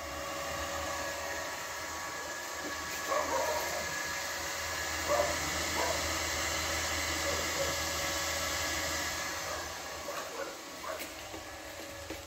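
Boxer Migflex 160 inverter MIG welder switched on, its cooling fan running with a steady whir and a faint whine, somewhat quieter near the end. A few short, pitched calls sound in the background around the middle.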